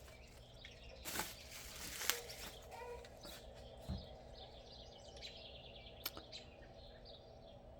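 Faint birds chirping in the background, with a few soft clicks and knocks from the foam cannon parts being handled.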